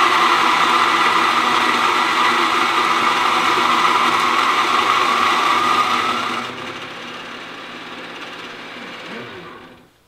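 Baratza Forte coffee grinder grinding a single dose of beans: a loud, steady motor-and-burr whir. About six and a half seconds in it drops to a lighter whir as the burrs run empty, then it stops just before the end.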